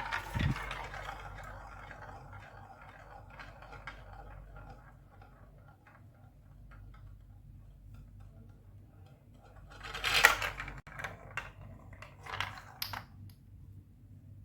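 Marbles rolling and clattering down a Lego Duplo plastic block track. A clatter and thump at the start fade into a long roll, then a louder clatter about ten seconds in is followed by a string of clicks and knocks.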